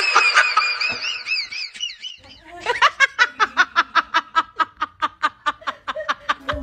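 Laughter: high, wavy giggling for about the first two seconds, then after a short pause a rapid run of evenly spaced 'ha-ha' pulses, about five a second.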